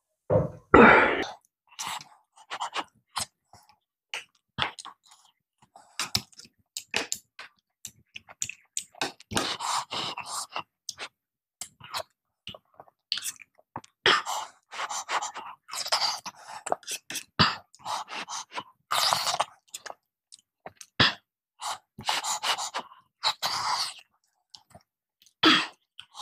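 Close-up eating sounds picked up by a clip-on microphone: wet chewing and lip smacking of soft khichdi, with irregular spoon clicks and scrapes on the plate. There is one louder thump about a second in.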